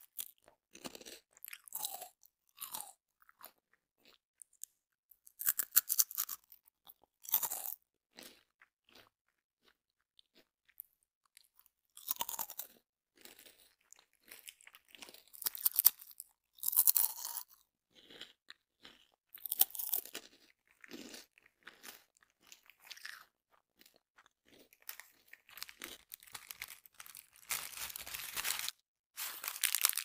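Close-miked crunching of crunchy snacks being chewed, in short irregular bursts with quiet pauses between them.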